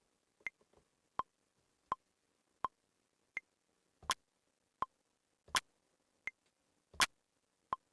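Maschine metronome clicking steadily at about 83 beats a minute, with a higher-pitched click on the first beat of each bar. From about four seconds in, every other beat brings a louder, fuller click or tap.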